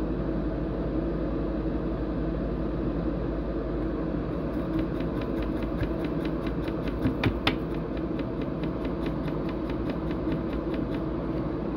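A steady low mechanical hum, like a fan or motor running. From about four seconds in until near the end it is joined by a run of faint, even ticks, about five a second, with one sharper click in the middle.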